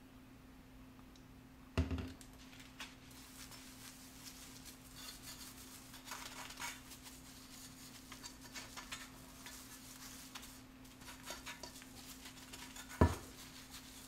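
A sponge scrubbing cleanser over a Zepter stainless steel pot in soft, irregular rubs. Two loud knocks of the cookware sound, about two seconds in and near the end.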